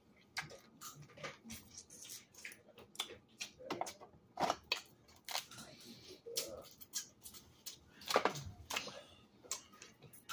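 Boiled blue crab shells cracking and snapping as they are pulled apart by hand, with wet sucking and chewing at the crab meat. A string of sharp cracks and clicks, the loudest about four and eight seconds in.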